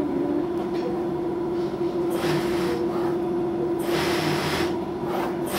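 Knife blade cutting through stacked sheets of synthetic leather along a pattern edge: three short scraping strokes, the first about two seconds in, over a steady hum.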